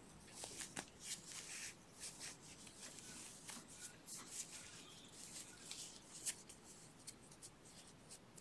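Faint rustling and scratching of yarn being worked with a crochet hook, in many short irregular strokes, as single crochets are stitched.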